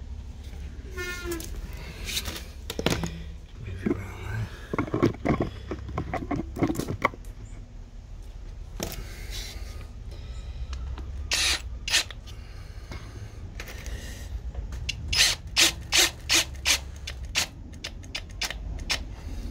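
Clicks and knocks of handling parts, then an Erbauer cordless drill driver driving a screw into a plastic manhole chamber. The drilling is heard as a quick run of short, sharp sounds about three-quarters of the way through.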